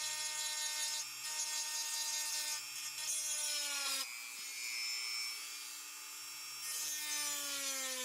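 Dremel rotary tool with a small ball burr whining at high speed, grinding in on-and-off passes as it cuts the heads off the pins in a pocket knife's handle. The pitch dips sharply a little past halfway, then slowly falls near the end.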